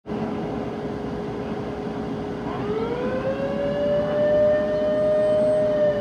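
Federal Signal Selectone electronic fire warning siren starting its wail: a tone rises from a little under halfway in and levels off at a high, steady pitch. It is the alert that the fire company's air horns are about to blast for a fire call.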